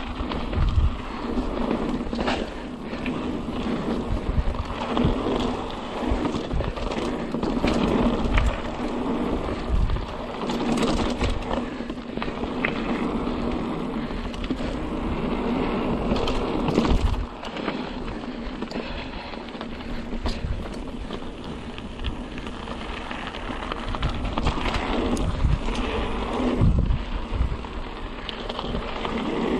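Mountain bike rolling fast down a dirt trail: a steady rush of tyres on the ground with frequent rattles and knocks as the bike goes over bumps.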